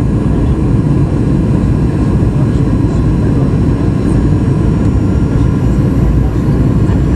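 Steady cabin noise inside a Boeing 737-800 on approach, heard from a window seat beside the wing: an even, deep rumble of airflow and its CFM56-7B jet engines, with a faint steady high hum above it.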